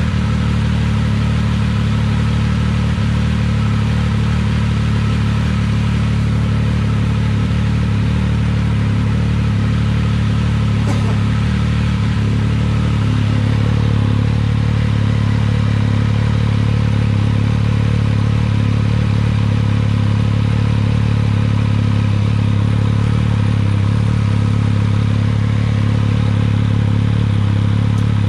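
Triumph Speed Triple 1200 RS's inline three-cylinder engine idling steadily through a newly fitted SC Project CRT twin-outlet muffler, heard close to the outlets. It reads 91–93 decibels at idle.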